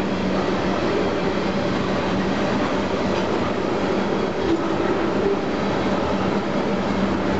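Tank cars of a freight train rolling past: a steady rumble and clatter of steel wheels on the rails, with a faint steady hum underneath.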